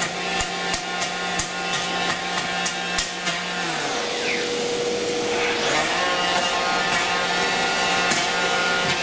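Festool 850 electric planer with a rustic cutter head running and cutting dimples into oak in short passes, over the steady hum of dust extraction. Regular ticks come about three a second in the first half, then the tone dips and recovers near the middle as the planer is worked.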